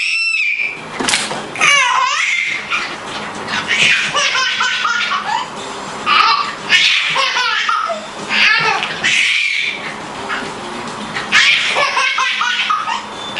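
Baby laughing hard in repeated bursts, a new bout every couple of seconds.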